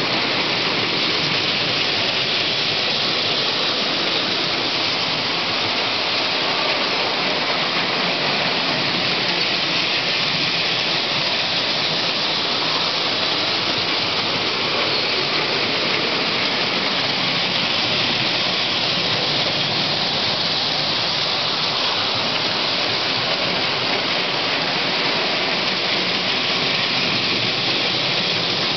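Postwar Lionel 675 toy steam locomotives and their cars running on O27 tinplate track: a steady rushing rumble of metal wheels on tin rails, with no breaks or changes in level.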